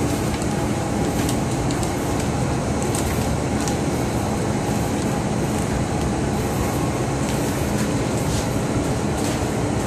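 Steady drone of a merchant ship's machinery and ventilation. Faint rustles come from washing powder being poured from a plastic bag into a washing machine's detergent drawer.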